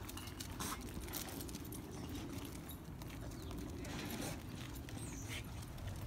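Footsteps of people and dogs walking on a tarmac road: scattered light steps and clicks over a steady low rumble.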